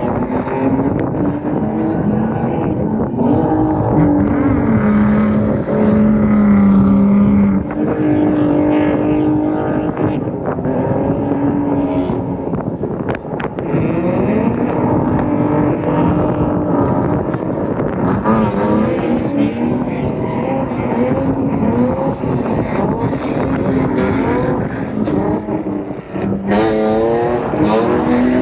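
Drift cars' engines revving hard on track, the pitch rising and falling again and again as the cars accelerate and lift. There are two long stretches of hissing noise, one a few seconds in and another near two-thirds of the way through.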